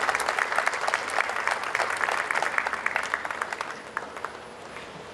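Audience applauding, dense clapping that thins out and dies away about four seconds in.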